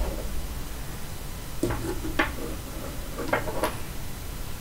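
Hands handling a sports headset at the radio: a few short light clicks and knocks, about four, between a second and a half and four seconds in.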